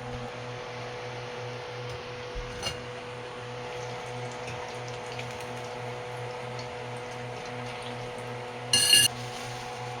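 Empanadas frying in a pan of oil over a steady, pulsing hum. There are two light knocks about two and a half seconds in, and a sharp ringing clink of a utensil against the pan near the end.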